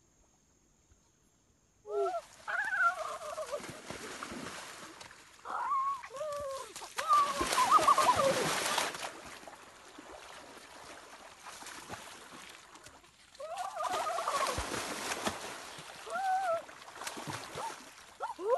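After about two seconds of near silence, boys whoop and call out in short bursts while swimming and splashing in a shallow river. The splashing is loudest about seven to nine seconds in and again around fourteen seconds.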